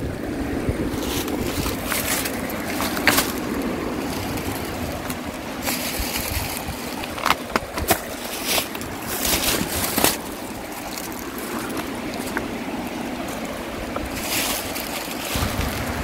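A swollen mountain stream rushing steadily, with wind buffeting the microphone. Scattered footfalls and rustling through plants and over wire-mesh-caged rocks, with a few sharp clicks.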